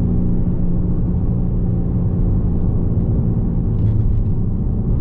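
2021 Lamborghini Urus's twin-turbo V8 running steadily with road rumble while the SUV cruises. There are a few faint clicks about four seconds in.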